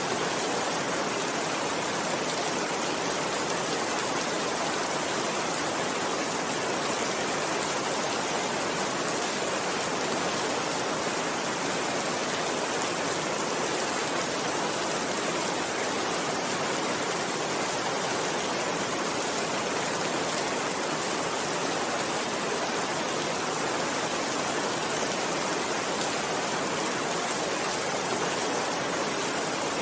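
Steady rainfall: an even hiss of many raindrops, with no single drop or pattern standing out.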